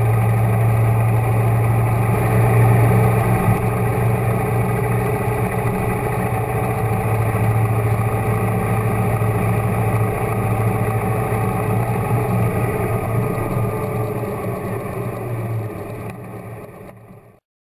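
Motorcycle engine running at a steady road speed, briefly louder about three seconds in, then fading out near the end.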